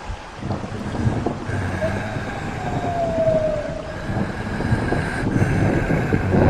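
Horror ambience sound effect: low rumbling noise with a faint steady high tone and a short falling whine about three seconds in.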